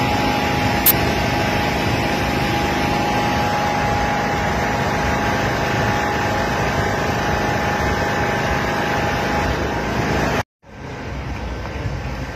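Steady outdoor background rumble with a faint held tone running through it. A short sharp click comes about a second in, and the sound drops out abruptly near the end, then returns quieter.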